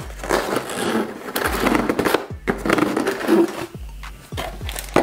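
Cardboard packaging being handled inside a motherboard box, with scrapes and light knocks as the insert is lifted out, and plastic accessory bags rustling.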